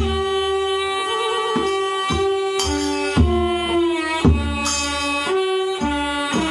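Kantrum ensemble music: a bowed tro fiddle plays a held, gliding melody over hand-drum strokes, with brief bright shimmers from small cymbals or rattles now and then.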